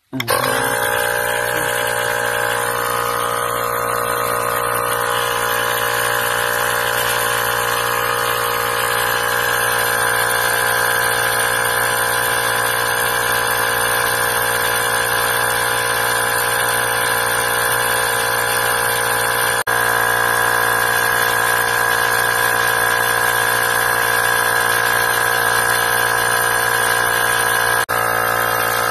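Portable tyre inflator's small air compressor kicks on abruptly and runs steadily, pumping air into a car tyre that has a slow puncture. There are two momentary dips in its sound in the second half.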